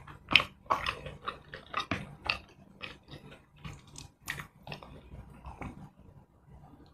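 Close-miked chewing and wet mouth-smacking of a mouthful of rice and fish curry: a quick string of short clicky smacks that thins out near the end.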